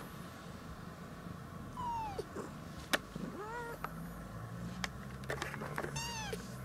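Kittens mewing: three short, high-pitched mews, about two, three and a half, and six seconds in, with a few sharp clicks between them.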